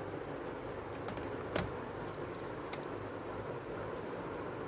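Small plastic clicks and taps from handling a laptop LED panel's display cable connector: a few scattered clicks, the loudest about a third of the way in, over a steady low background hum.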